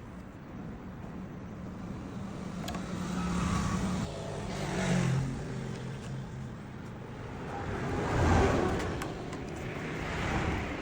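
Motor vehicle engine sound that swells and fades several times, loudest a little past the middle, over a low steady engine hum.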